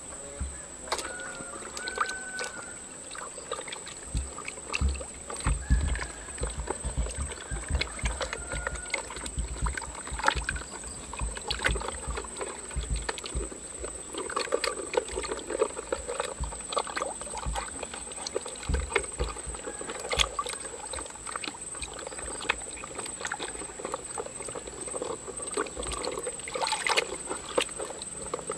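Water sloshing and splashing in a plastic tub as hands scrub a muddy plastic toy car, in irregular bursts, with a steady high insect drone behind it.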